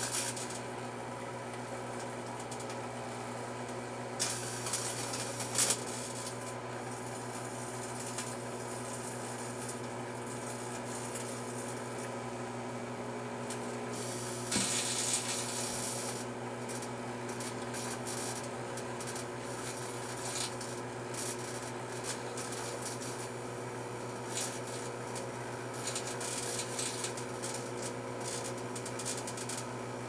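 Rival microwave oven running with a steady hum. Short bursts of crackling come about four seconds in, again around fifteen seconds, and near the end, most likely arcing among the CO2 cartridges heating inside.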